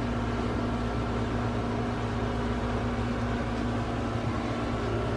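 Steady machine hum of room equipment such as an air-conditioning unit, with a constant low tone and an even hiss that does not change.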